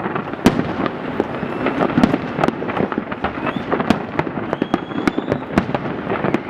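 Large fireworks display going off, with many sharp bangs and crackles in quick succession over a dense, continuous wash of explosions. One loud bang stands out about half a second in.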